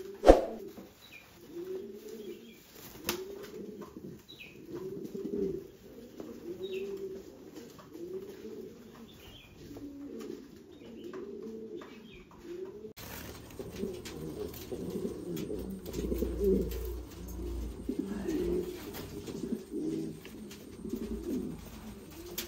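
Norwich cropper pigeons cooing, a steady run of low rising-and-falling coos about one a second. There is a single sharp click just after the start.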